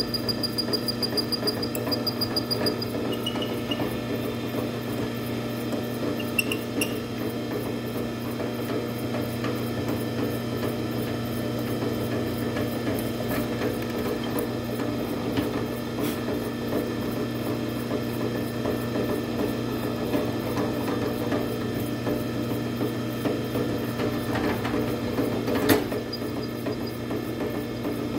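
Drill press running steadily while its hollow-chisel mortising bit is plunged repeatedly into a wooden board to cut a through mortise, with a sharp knock near the end.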